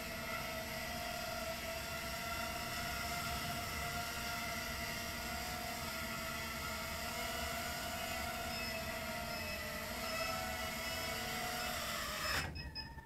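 Realacc RX130 micro quadcopter's 1306 brushless motors and three-blade 3-inch props whining steadily in a hover, the pitch wavering a little. The whine stops suddenly near the end.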